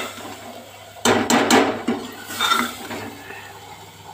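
Metal ladle scraping and clinking against an aluminium pressure cooker as thick onion-and-spice masala is stirred, with a quick run of knocks about a second in and another near the middle.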